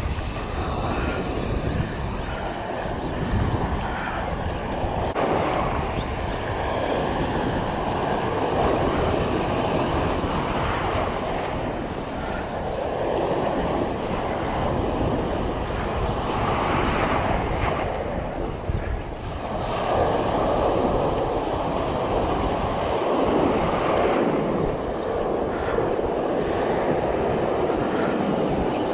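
Surf washing in and out around a wading angler, swelling and easing every few seconds, with wind rumbling on the microphone.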